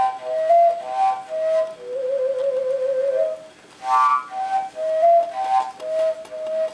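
A homemade fujara, a long Slovak overtone flute made of plastic water pipe, played as a melody of held high notes stepping between overtones. A wavering, trilled note runs from about two seconds in, then a brief break before a breathy, accented note about four seconds in.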